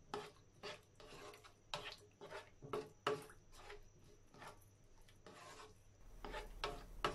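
Spatula scraping and stirring saucy vegetables around a non-stick pan in repeated strokes, about two a second.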